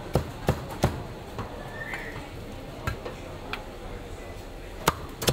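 Cleaver chopping on a wooden chopping block, sharp single knocks: three quick ones in the first second, then a chop every second or so, with two louder ones near the end.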